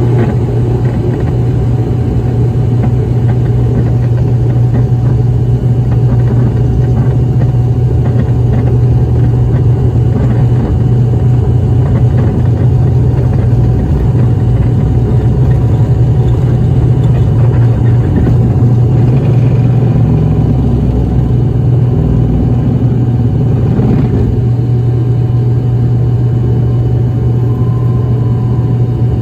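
ATR 72-600 turboprop airliner's Pratt & Whitney PW127M engines and propellers running at steady high power during takeoff: a loud, deep, even drone that barely changes.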